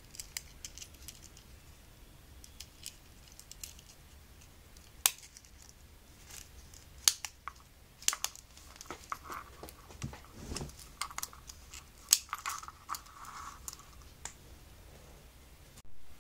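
Quiet handling sounds of a small black leather pick case with a snap button and metal key ring being turned over in the hands: scattered sharp clicks and ticks, light rustling of leather, and small metallic clinks.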